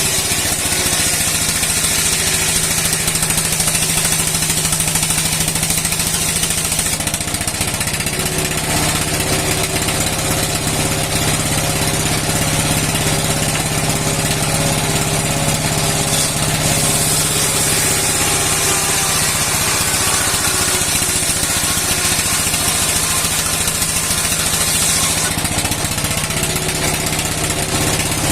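Old, roughly 60-year-old engine running steadily with a fast, even beat, driving a steel saw for cutting wood. A high hiss rises over it for most of the middle stretch.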